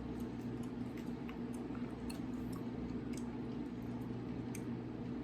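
Chewing gum with the mouth open: scattered small wet smacks and clicks several times a second, over a steady low hum.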